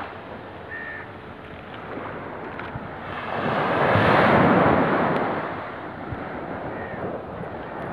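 Small sea waves washing onto a sandy beach. One wave breaks and rushes up the shore about three seconds in, the loudest part, then the wash eases off.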